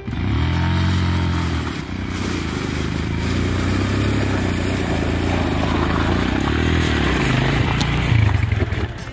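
Dual-sport motorcycle riding slowly over a loose gravel track, its engine revs rising and falling as the rider works the throttle, with stones crunching under the tyres.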